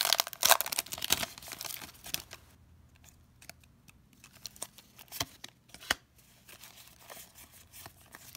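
Foil Pokémon TCG booster pack wrapper crinkling as the cards are pulled out, loudest in the first second or two. Then a few sharp card taps as the stack is squared, and a faint rustle of cards being sorted near the end.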